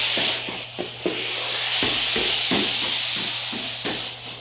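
Exercise gliding discs scraping across a hardwood floor as they are pushed along under the hands, a loud steady hiss with feet thudding about three times a second. The scraping drops out briefly about a second in, then resumes and fades near the end as the slider moves away.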